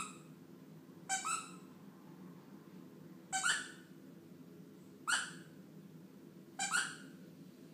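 Akita Inu puppy whining in short high-pitched cries, four of them about every one and a half to two seconds.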